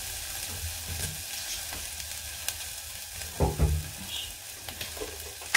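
A little oil sizzling steadily in a stainless steel saucepan as food fries in it, the first stage of a currywurst sauce. A brief low hum sounds about three and a half seconds in.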